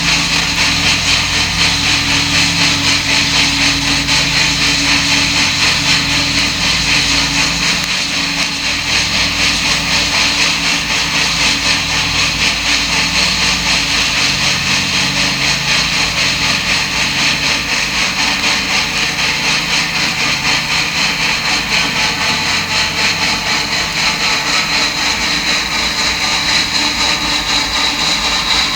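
DM&IR Yellowstone No. 225, a 2-8-8-4 articulated steam locomotive, working under steam with a steady, rapid chuffing exhaust beat over the noise of its running gear.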